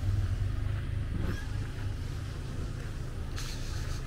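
A small car driving slowly past at close range, a steady low rumble of engine and tyres.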